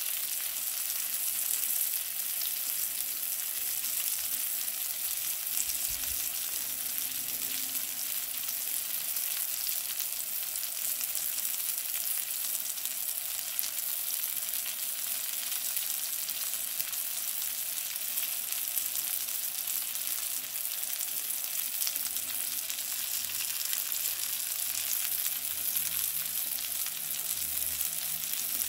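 King mackerel steaks frying in butter in a nonstick pan: a steady sizzle with fine crackles throughout.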